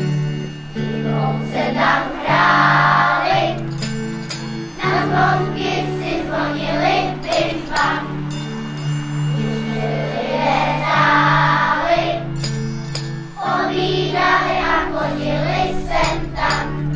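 Children's choir singing a Christmas carol over instrumental accompaniment with steady low notes, with a tinkling of bells at times.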